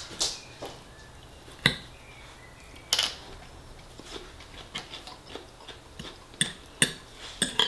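Metal fork clinking and scraping against a ceramic dinner plate while picking up salad: several sharp, separate clinks with quieter eating sounds between them.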